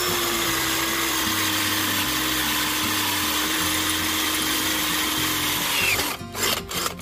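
Dekton D21 cordless drill running at high speed, boring into steel. The motor's steady whine sags slightly in pitch under load and stops about six seconds in, followed by a few short knocks.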